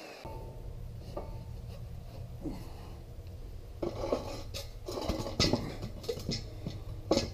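Steel square tubing knocking and scraping as one tube is slid into the square receiver of the stand: a series of sharp metal clanks, heaviest from about four seconds in, with the loudest around five seconds in and just before the end, over a low steady hum.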